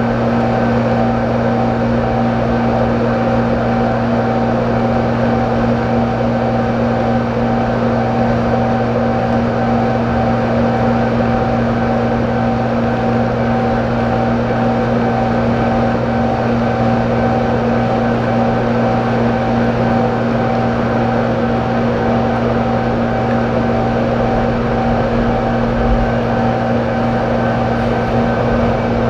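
Steady machine hum with several fixed tones over a haze of noise, unchanging throughout.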